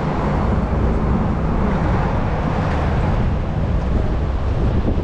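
Steady low rumble of a moving tour bus and surrounding city traffic, heard from the bus's open top deck.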